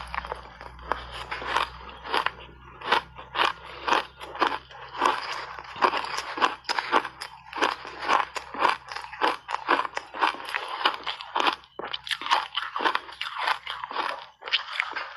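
Refrozen shaved ice being bitten and chewed: a dense, irregular run of crunches, several a second.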